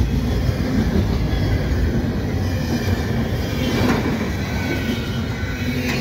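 Covered hopper cars of a CN unit grain train rolling past fast: a steady rumble of steel wheels on rail with faint high wheel squeal, swelling briefly about four seconds in.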